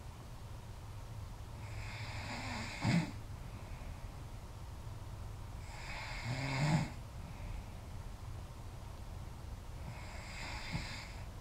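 A woman snoring in her sleep: three snores about four seconds apart, each a rough, noisy breath with a low rattling tone, over a steady low hum.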